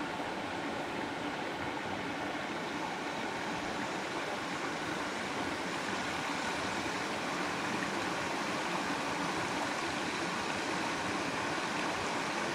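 Steady rush of water from a rocky mountain stream.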